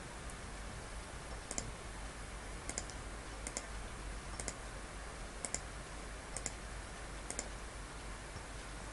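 Computer mouse button clicks, about eight of them spaced roughly a second apart, each a quick doubled tick of press and release, over a steady hiss of microphone noise.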